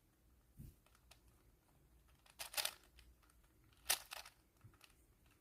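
Plastic 4x4 Rubik's cube being turned by hand: short clusters of clicking layer turns, the two loudest about a second and a half apart, with a soft knock under a second in.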